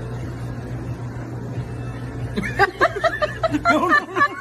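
A steady low hum, then from about halfway through a person giggling in quick, high-pitched little laughs as the baby bites the ice cream cone.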